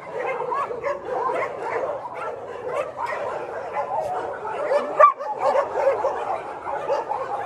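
A crowd of mixed-breed dogs barking and yelping over one another in a dense, unbroken chorus of short calls, with one louder call about five seconds in.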